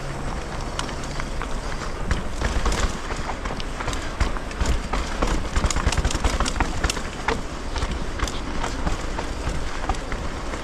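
Mountain bike rolling down a rough trail: a steady low rumble of tyres on the ground with dense clicking and rattling of the bike over stones and bumps, busiest about halfway through.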